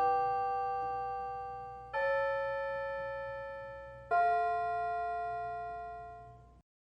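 Piano playing slow chords, three struck about two seconds apart, each ringing and fading before the next; the sound cuts off abruptly shortly before the end.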